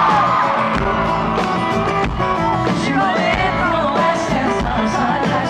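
Live country-rock band playing loudly with singing, recorded from within a crowd of fans who are yelling along.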